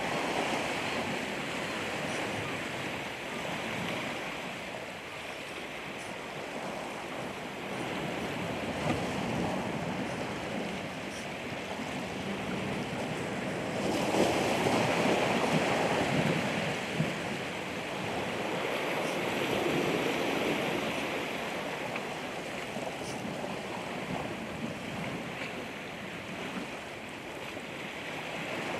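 Ocean waves washing and breaking, one surge rising louder about halfway through and a smaller one a few seconds later.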